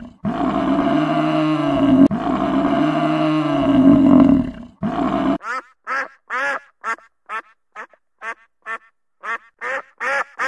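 Cape buffalo giving deep, drawn-out bellowing calls, about two seconds each, three in a row. About five seconds in these stop abruptly and ducks quack in short, rapid quacks, about three a second.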